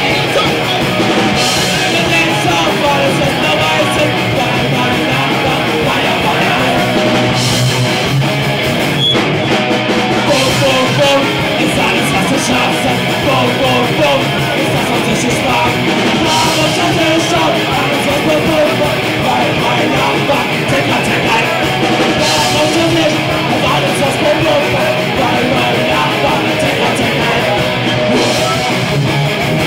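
A rock band playing loud and live: distorted electric guitars, bass and drums with cymbal crashes every few seconds, and a singer's voice through the microphone.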